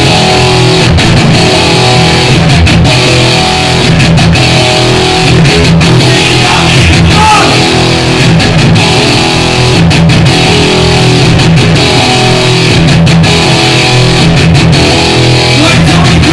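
Live punk band playing loud: electric guitar, bass guitar and drums together, recorded close to the stage.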